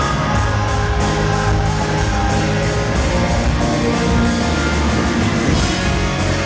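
A rock band playing live, with electric guitar and a drum kit whose cymbal beats about three times a second.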